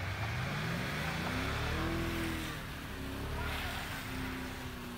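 SUV engine revving up over about two seconds under load and easing off, then holding a steadier pitch near the end, as it strains in a tow-strap recovery of a vehicle stuck in snow.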